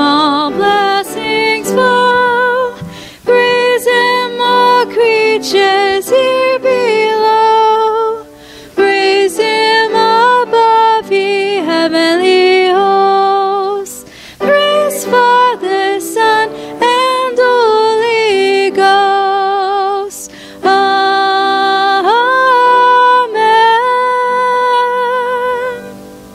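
A slow song: a woman's voice sings long phrases with wide vibrato over sustained instrumental accompaniment, and the music fades away at the end.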